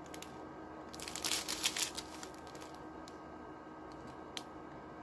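Small plastic packets of diamond-painting drills crinkling as they are handled, with a burst of rustling about one to two seconds in, then a few light clicks.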